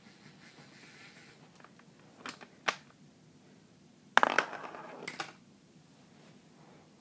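Lego pinsetter mechanism working: two sharp plastic clicks about two and a half seconds in, then a burst of plastic clattering and clicking around four seconds in that lasts about a second.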